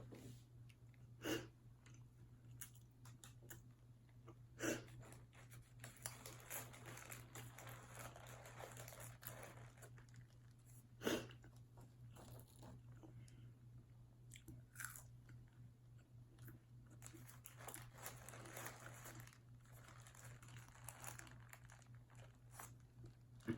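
A person chewing and biting food close to the microphone: soft, irregular mouth clicks and crunches, with three sharper, louder ones scattered through, over a steady low hum.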